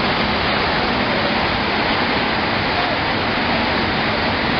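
Muddy floodwater rushing over a street in a steady wash of noise.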